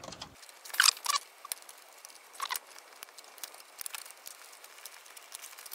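Thin aluminium shield case of a Sony DSR-370 camcorder being pried and bent by hand. Scattered sharp clicks and crackles, a few louder ones about a second in and again at two and a half seconds, then a run of small ticks.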